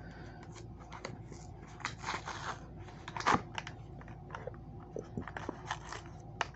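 Plastic blister and card packaging of a Hot Wheels die-cast car being worked and torn open by hand: scattered crinkles and clicks, the loudest crackle about three seconds in.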